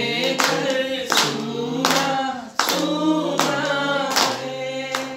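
A man singing long held notes of a Hindi song, with hands clapping along in a steady beat about every three-quarters of a second.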